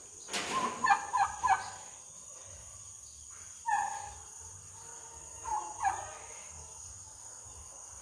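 Domestic turkeys calling in short bursts: a quick run of notes about a second in, then single calls around four and six seconds in.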